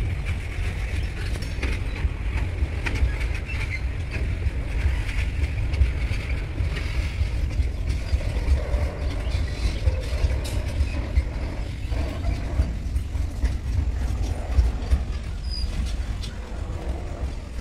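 Freight train of covered wagons rolling past, its wheels rumbling and clicking on the rails under a constant low rumble, easing off near the end as the last wagon and brake van go by.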